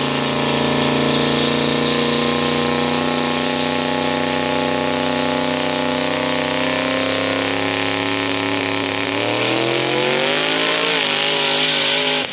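Drag-racing vehicle's engine running steadily at low speed, then climbing gradually in pitch over the last three seconds or so as it revs up.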